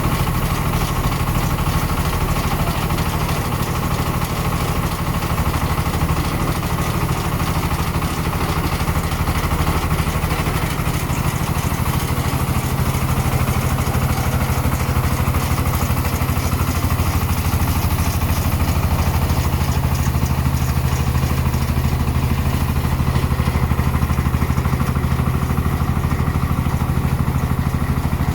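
Engine of a tricycle silage feed mixer-spreader running steadily.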